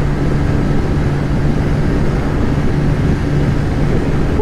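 Bajaj 125cc single-cylinder motorcycle engine held at high revs, around 9,000 rpm in fifth gear under full throttle, a steady drone over rushing wind and road noise.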